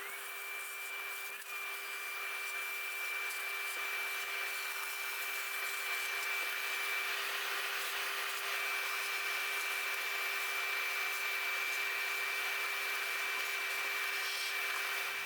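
An electric motor starts with a quick rising whine, runs steadily with a constant whine over a hiss, and cuts off suddenly at the end.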